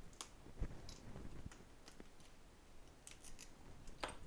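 Faint, scattered small clicks and taps of a precision screwdriver and tiny metal screws and parts being worked on an opened iPhone 6S.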